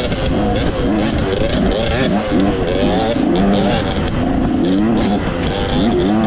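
Dirt bike engine running along a trail, its pitch rising and falling over and over as the throttle is worked on and off.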